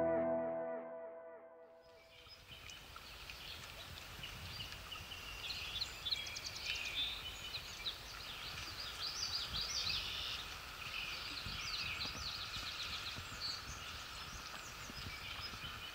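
Background music fades out in the first two seconds, then songbirds chirp and sing in many short, rapid calls over a low rumble of wind noise.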